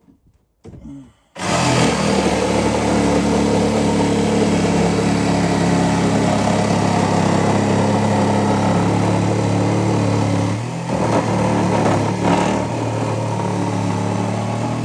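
Cordless power tool running steadily under load, cutting away wooden structure. It starts about a second and a half in, with two brief dips in speed near the end.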